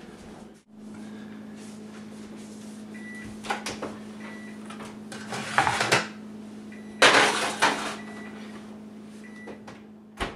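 A kitchen oven being loaded: the door opens and shuts with knocks and the clatter of a metal broiler pan, the loudest about seven seconds in. A few short beeps come through, over a steady low hum.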